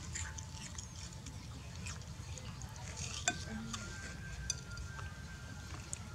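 Baby macaque eating watermelon: soft wet chewing and smacking with scattered small clicks, one sharper click about three seconds in, over a low steady rumble.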